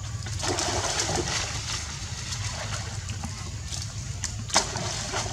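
Water splashing and sloshing as a long-tailed macaque swims and ducks under the surface of a pool, busiest in the first couple of seconds, with two short sharp sounds near the end.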